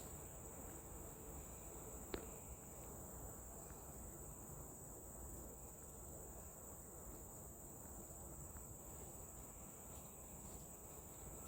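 Insects chirring in a steady high-pitched drone, with one short sharp click about two seconds in.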